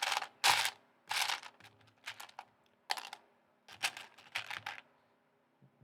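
Loose plastic Lego pieces clattering as a hand rummages through them, in a string of short, sharp rattles that stop about a second before the end.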